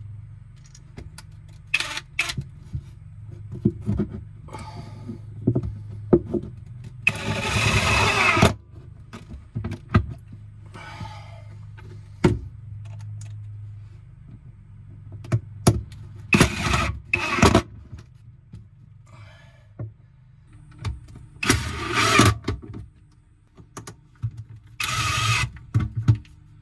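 Cordless drill-driver running in several short bursts, driving screws for saddle clamps that hold a water hose; the longest burst lasts about a second and a half. Clicks and handling knocks come between the bursts, over a steady low hum.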